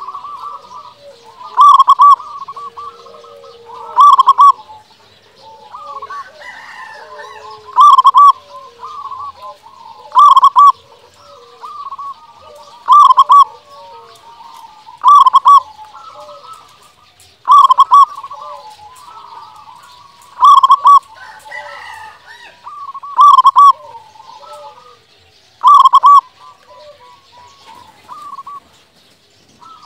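Zebra dove (perkutut) cooing: a loud, ringing note repeated about every two and a half seconds, with quieter, faster cooing notes in between.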